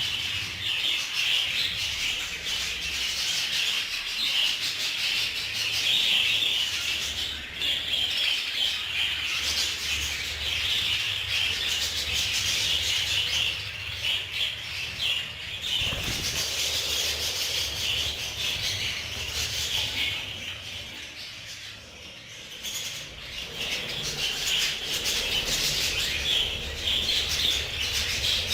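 A colony of budgerigars chattering continuously, a dense high twittering from many birds at once that eases off briefly about three quarters of the way through.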